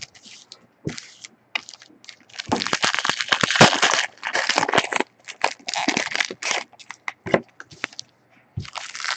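Crinkling and crackling of plastic trading-card pack wrapping being handled, in dense bursts starting about two and a half seconds in, again around five to seven seconds, and near the end, with scattered clicks between.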